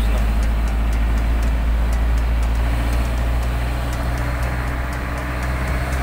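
Vehicle engine running steadily with tyre noise on a wet road, heard from inside the cabin while driving.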